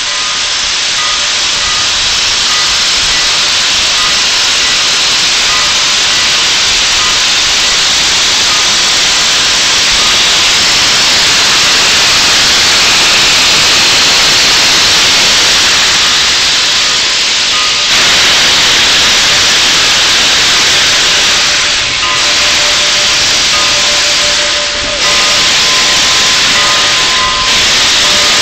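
Steam locomotive letting off steam: a loud, steady hiss, with faint steady tones beneath it, that dips briefly a few times near the end.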